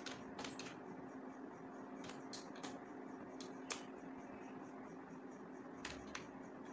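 Scattered single keystrokes on a computer keyboard, about ten clicks at an uneven pace, over a steady low hum.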